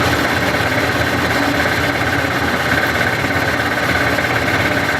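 Small metal lathe running steadily while turning down a motor's armature shaft.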